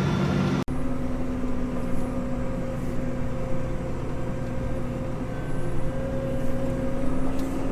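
Tractor engine running steadily under ploughing load, heard from inside the cab. A brief dropout a little after half a second in, after which the engine note settles at a different pitch and holds steady, rising slightly near the end.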